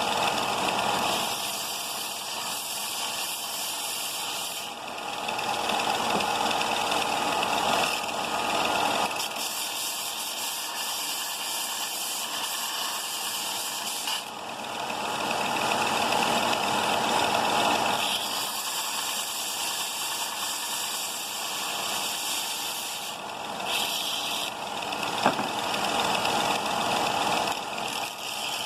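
Bauer 4-inch by 36-inch belt/disc sander running and grinding small steel pieces clean. The hissing grind swells and eases every few seconds as the metal is pressed to the abrasive, with one sharp click near the end.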